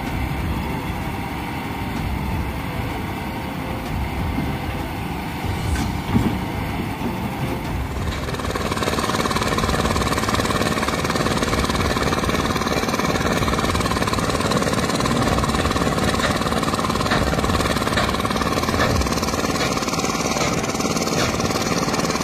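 Heavy machinery engine running at a steady idle-like drone, uneven at first and louder and steadier from about eight seconds in.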